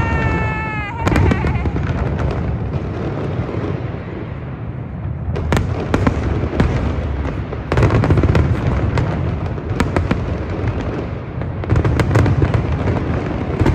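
Aerial fireworks display: a continuous rumble of overlapping booms with many sharp crackles and pops, swelling to heavier volleys about eight seconds in and again near the end.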